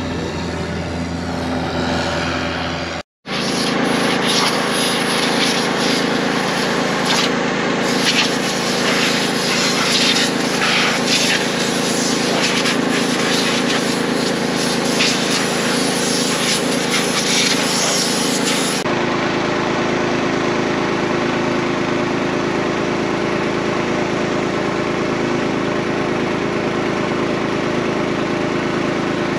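Farm tractor engine running steadily, in cut-together shots: a brief dropout about three seconds in, and a different, steadier engine note from about two-thirds of the way through.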